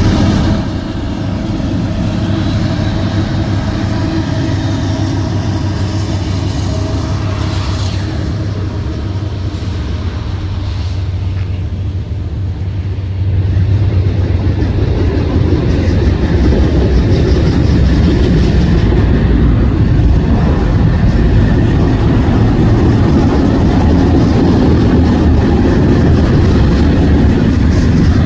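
CSX freight train passing: steady rumble and clatter of rail cars rolling over the track, getting louder about halfway through.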